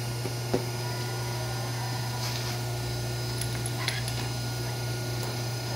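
Steady low hum from the hydraulic hose crimping machine's running power unit, with a few light metal clicks.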